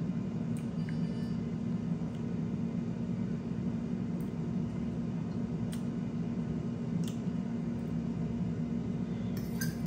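Steady low mechanical hum, with a few faint ticks through it. Near the end come quick light clinks of a metal fork against a dish.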